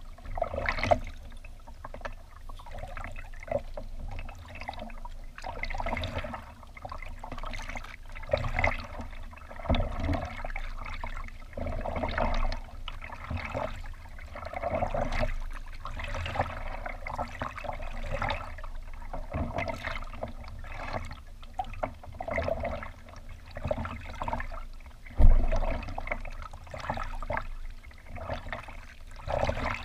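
Kayak paddling: water splashing and trickling from the paddle strokes and along the hull, swelling and fading every second or two. One sharp low thump late on.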